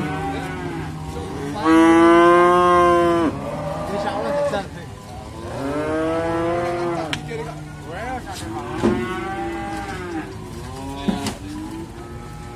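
Young beef bulls mooing, several long low calls one after another, the loudest about two seconds in.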